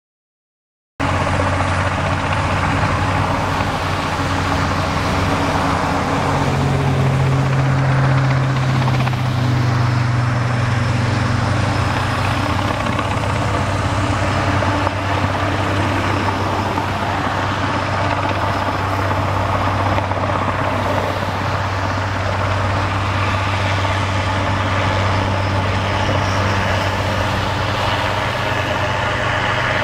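Steady engine noise with a low, even hum, from a helicopter crane working over a construction site together with nearby road traffic and machinery; it starts about a second in.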